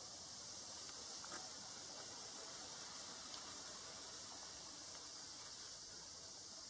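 A steady, high-pitched buzzing hiss that swells in about half a second in and stops abruptly about six seconds in.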